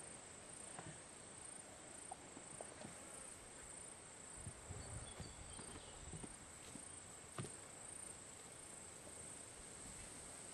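Faint, steady high-pitched insect chirring that pulses evenly, with a few soft scattered knocks. The loudest knock comes about seven seconds in.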